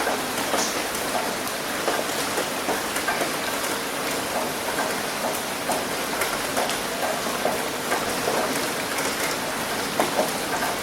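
Steady rain falling, a dense even hiss with many separate drops ticking sharply on a surface close by.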